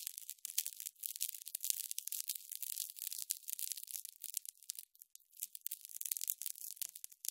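Electric sizzle: a dense, irregular crackle of tiny spark-like clicks, thin and high-pitched with no low body, thinning out briefly about five seconds in.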